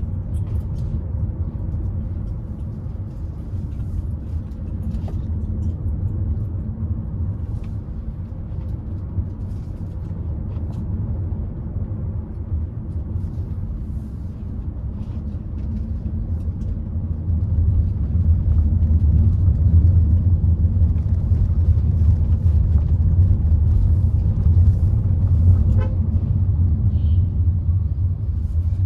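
Hyundai Creta driving along a ghat road: a steady low rumble of engine and road noise, growing louder about two-thirds of the way through.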